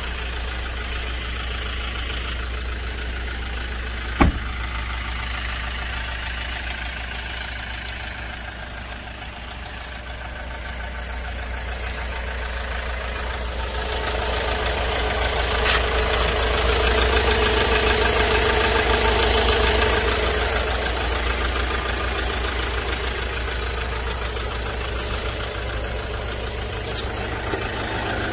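Hyundai Porter II one-ton truck's diesel engine idling steadily, growing louder for several seconds in the middle and easing off again. A single sharp click about four seconds in.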